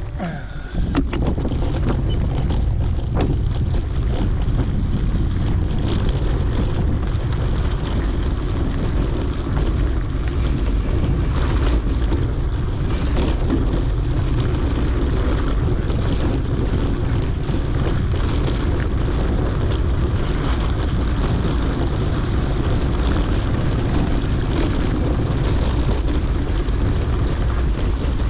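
Wind noise buffeting a GoPro's microphone while a mountain bike rides a dirt trail, a steady low rush that picks up about a second in, with scattered clicks and knocks.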